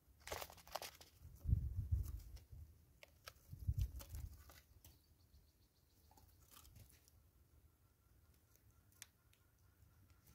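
Smith's bush squirrels scrabbling at a plastic bottle of seeds and crunching seeds: crackling, clicking and a few dull thumps in the first half, then only scattered single clicks.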